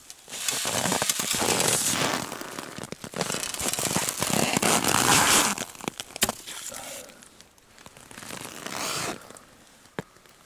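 Crunching, crackling rustle of ice and snow at an ice-fishing hole and of the jacket sleeve as a hand reaches down into it. It comes in two long stretches of a couple of seconds each, then weaker rustles near the end.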